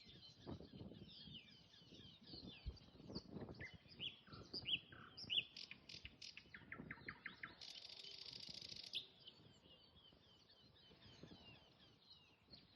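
Nightingale singing faintly: quick chirping and whistled phrases, a run of rapid repeated notes about six seconds in, then a dense buzzing rattle lasting about a second.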